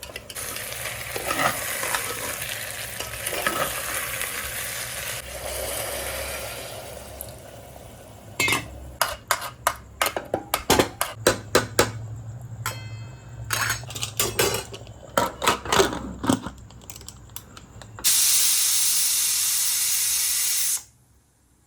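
A spoon stirring chicken pulao in a sizzling pot: frying sizzle for the first several seconds, then a run of quick clinks and scrapes of the spoon against the pot. Near the end a loud steady hiss lasts about three seconds and cuts off abruptly.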